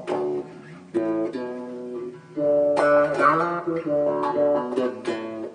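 Bass guitar being plucked, a short run of separate notes with one sliding note about three seconds in. It is being played to try out a fresh setup after neck shimming and string-height adjustment.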